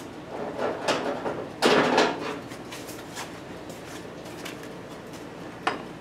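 Gloved hands handling a steel mold at a shop press: a knock, then a brief scraping slide about two seconds in, and a sharp click near the end.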